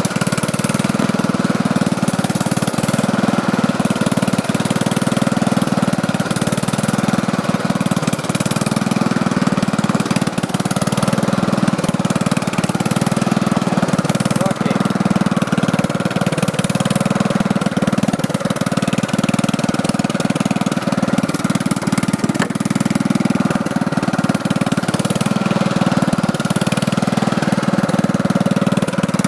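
Riding lawn tractor engine running steadily as the tractor is driven over muddy ground and grass.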